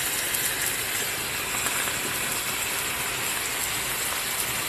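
Chicken pieces sizzling steadily in hot oil in a pan.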